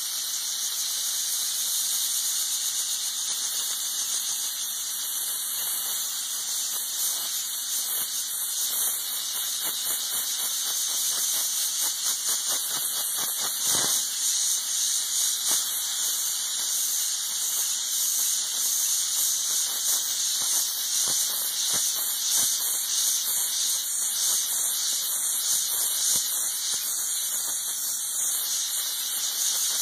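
McCulloch MC1275 steam cleaner jetting steam through a small brush nozzle onto floor tile: a steady high hiss that grows a little louder about twelve seconds in.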